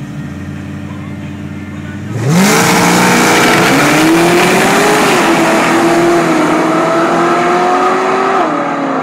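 Engines idling, then about two seconds in a sudden loud launch: the supercharged and twin-turbo V8s of a Whipple-supercharged SVT Cobra and a twin-turbo SVT Lightning accelerating hard down a drag strip. The engine pitch climbs and drops back a few times at the gear changes.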